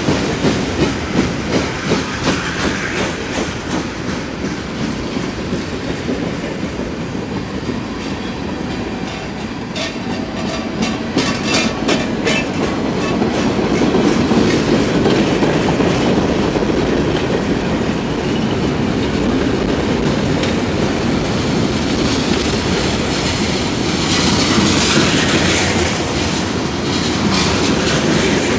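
Freight cars of a long CSX manifest train rolling past, with a steady rumble and the wheels clicking over rail joints in a quick, regular rhythm, plainest in the first few seconds, and a short run of sharp clicks about ten seconds in.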